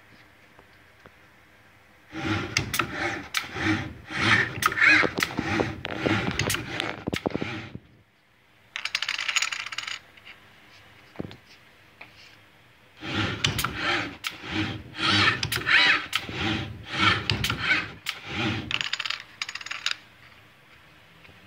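Viper 650 robot arm moving in quick runs of motion, its drive noise mixed with sharp clicks of plastic poker chips being picked up and set onto stacks. There are two runs of about six seconds each and a short one between them.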